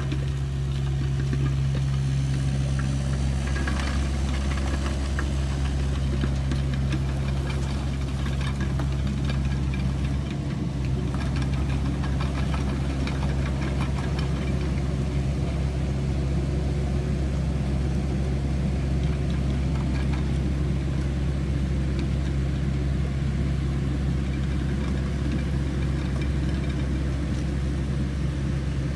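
Hitachi ZX65USB mini excavator's diesel engine running steadily, with scattered short clicks over roughly the first half.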